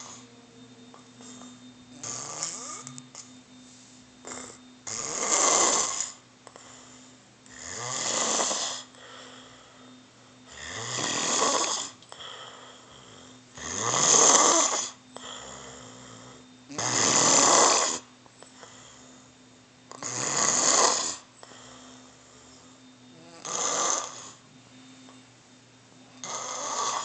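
A sleeping person snoring: eight loud snores, each about a second long, one roughly every three seconds.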